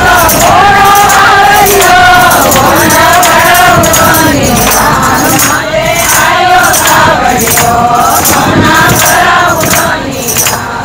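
A group of women singing a Marwari Krishna bhajan together, keeping time with a steady beat of hand claps.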